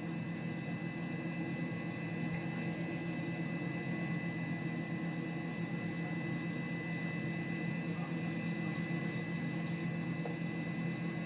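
Steady low hum and hiss with two faint, thin high tones held throughout.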